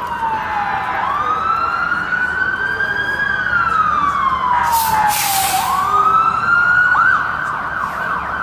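Several emergency vehicle sirens sounding together: one wails in a slow rise and fall while another holds a steady high tone. About seven seconds in, a siren switches to a fast yelp.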